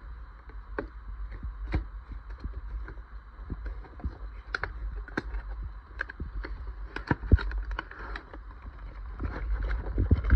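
A cardboard toy box and its plastic tray being handled and opened: scattered taps, clicks and scrapes of packaging, getting busier near the end, over a steady low hum.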